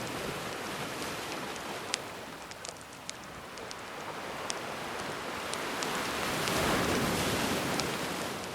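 Gentle ocean waves washing ashore, one wave swelling to its loudest about seven seconds in and then ebbing, with campfire crackles and small pops scattered over it.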